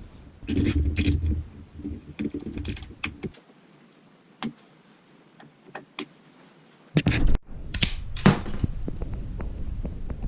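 Clicking, tapping and knocking of tools and bike parts being handled in a small room, in short stretches broken by abrupt cuts.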